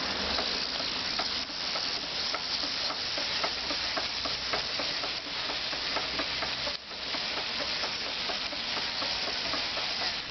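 Spinning e-bike rear wheel with a hand pressed on the tyre: a steady hiss of the tyre rubbing under the hand, with many faint ticks and knocks from the rear wheel. The knock is an unexplained fault that the owner cannot trace, with the bolts tight, the wheel centred and the derailleur adjusted.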